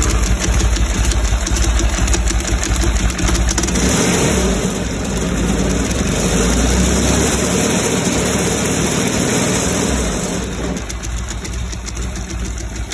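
Norton Commando 850's air-cooled parallel-twin engine running, freshly restarted after an electric-starter install. Its note changes about four seconds in and settles lower near the end.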